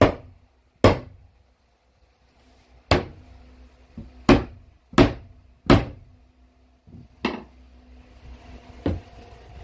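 Hammer striking a plywood subfloor: about seven sharp, irregularly spaced blows, with a fainter knock near the end.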